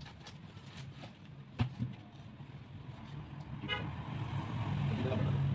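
Passing road traffic: a vehicle engine's low hum builds to its loudest about five seconds in, with one short horn toot midway and a single sharp click a second and a half in.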